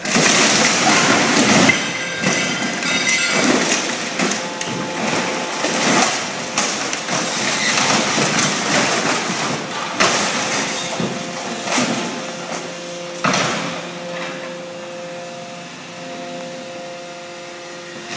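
The hydraulic grab of a material-handling excavator crushing a small boat. The hull cracks and splinters in a series of sudden crunching crashes, over the steady hum of the machine. The crashing is lighter toward the end.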